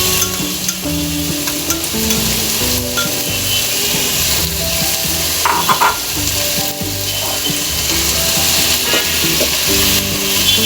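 Prawns and chopped vegetables sizzling in a hot pan of oil while being stirred with a spatula, a steady frying hiss throughout.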